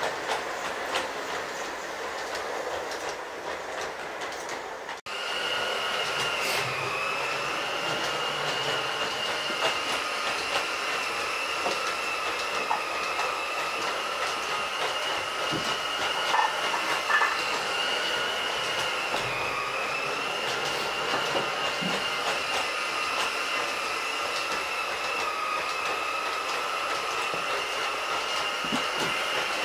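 LGB G-scale electric model train running around its track, with a steady whine and scattered light clicks from the wheels over the track. The sound briefly cuts out about five seconds in.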